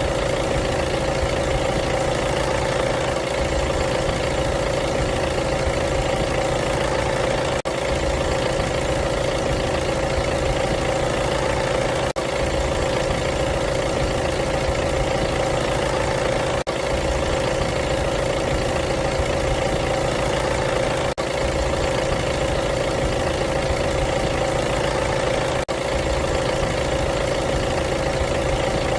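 Diesel car engine idling steadily at an even pitch, with a faint break about every four and a half seconds.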